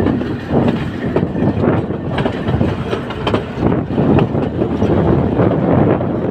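Passenger train running on the track: a steady rumble with wheels knocking and clattering over the rails.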